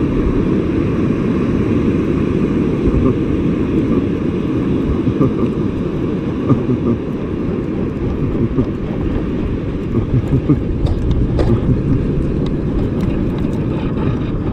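Steady rumbling of wind on the microphone and breaking surf, with a few faint sharp clicks about two thirds of the way through.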